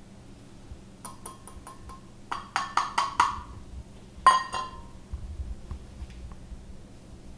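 Small metal scoop clinking and tapping: a few light taps about a second in, a quick run of sharp ringing taps between two and three seconds in, and one loudest clink a little after four seconds.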